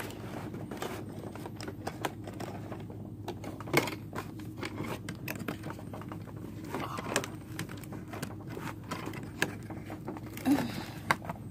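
Hands working at a toy horse trailer's packaging: irregular small clicks, taps and scrapes of cardboard, wire twist ties and plastic parts over a steady low hum.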